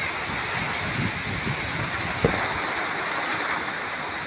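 Typhoon wind and heavy rain: a steady rush of rain with an uneven low rumble of gusts. A single thump about two seconds in.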